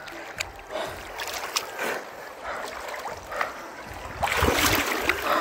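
Water sloshing and splashing around a person wading chest-deep in a flooded river, with small splashes throughout and louder sloshing near the end.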